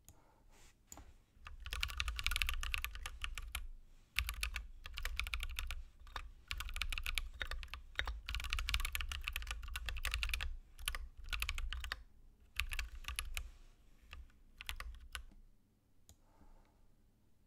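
Typing on a computer keyboard: quick runs of keystrokes with short pauses between them, thinning out near the end.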